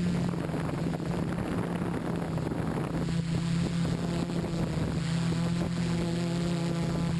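OFM 650 multicopter's electric motors and propellers running with a steady drone of held low tones, with wind noise on the microphone.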